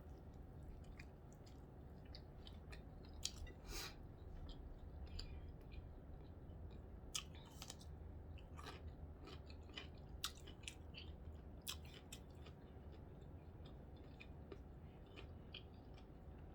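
A person chewing food close to the microphone: faint, scattered wet clicks and smacks from the mouth.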